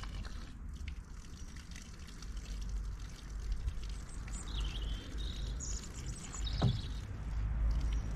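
Water pouring and trickling as the pressure washer's clogged inlet filter is rinsed out, with a single thump about two-thirds of the way through. A bird chirps briefly in the middle.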